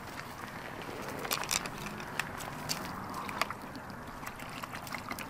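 A dog drinking water poured from a plastic bottle: trickling and sloshing water with a scatter of small wet clicks from her lapping.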